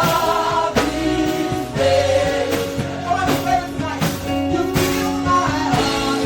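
Live gospel praise music: singers holding long, wavering notes over a band with sustained keyboard and bass and a steady drum beat.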